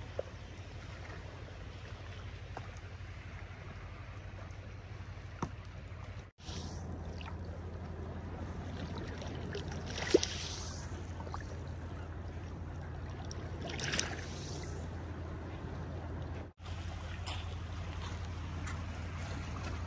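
Small sea waves lapping and washing on a pebbly shore, swelling softly three times, over a steady low hum.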